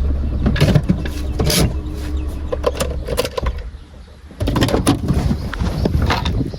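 A car on the move: a steady low rumble with scattered knocks and clicks. It drops away briefly about four seconds in, then resumes.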